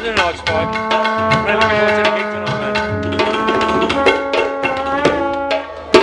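Tabla played with quick hand strokes together with a second hand drum, over long held notes from other instruments.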